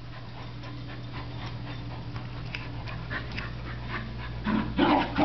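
Dogs, a Weimaraner and a German shepherd, panting as they tug on a rope toy, getting louder near the end.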